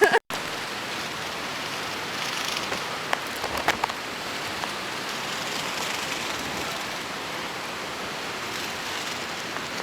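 Steady hiss of hurricane rain, even and unbroken, with a few faint knocks about three and a half seconds in.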